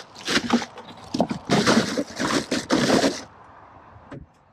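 Plastic bag of ice rustling and crinkling as it is handled, in a run of irregular bursts that stops about three seconds in. A single short click follows near the end.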